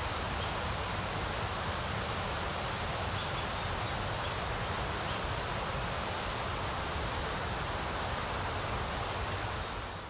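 Steady, even roar of distant motorway traffic rolling across the countryside.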